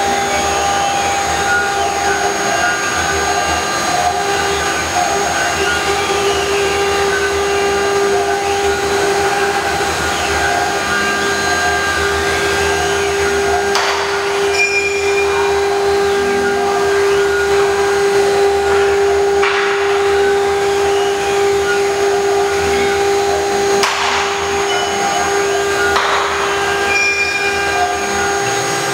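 CNC router spindle running at a steady high-pitched whine while its engraving bit cuts a plastic sheet. Fainter whines rise and fall as the head traces curves.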